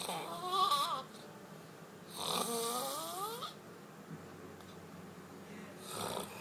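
Person snoring with eerie, whining pitched sounds: a short wavering one, then a longer one that rises in pitch, followed by a short breath near the end.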